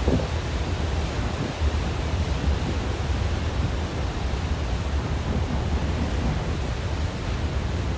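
Steady rush of wind and sea from the deck of the moving ferry Blue Star Delos, over a low rumble.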